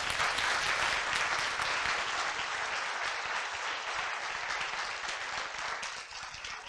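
Audience applauding: a dense, steady clatter of many hands clapping that eases a little toward the end.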